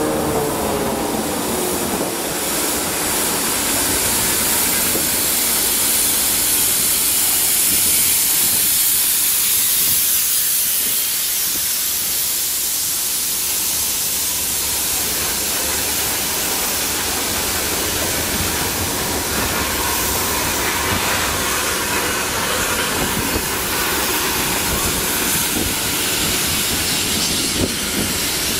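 Rail grinding train URR-112-5A grinding the rails as it rolls past: a loud, steady hiss with a low rumble underneath.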